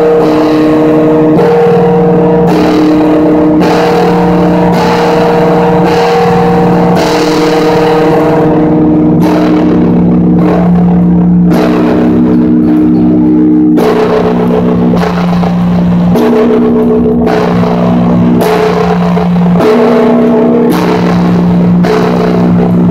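A huge 500-pood church bell being struck about once a second. Each stroke's deep ringing hum carries on into the next, so the ringing never dies away.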